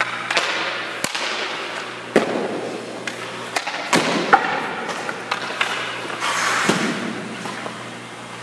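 Hockey pucks and sticks knocking against a goaltender's pads and stick on the ice: several sharp cracks, with skate blades scraping the ice in between.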